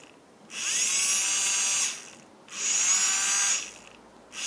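Small DC motor and plastic gearbox of a toy remote-control excavator's wheel drive, run in bursts of about a second: each burst begins with a rising whine as the motor spins up, then holds steady. Two bursts, with a third starting at the very end; the motor runs again now that its broken wire has been soldered back on.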